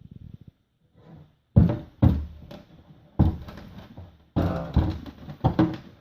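Antique cello's strings sounding five notes, each starting sharply and fading away.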